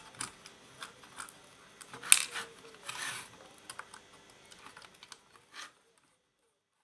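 Hands handling a clock radio's plastic case and the wiring inside during reassembly: light scattered clicks and rattles, a sharper knock about two seconds in and a short scraping rustle about three seconds in. The sound cuts off shortly before the end.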